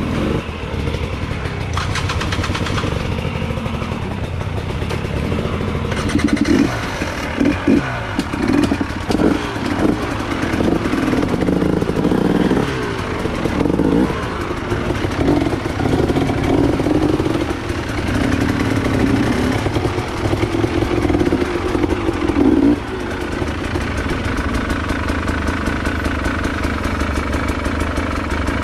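Off-road trail motorcycle engine running under uneven throttle on a dirt trail, rising and falling in short surges. About 23 seconds in it settles to a steadier, slightly quieter run.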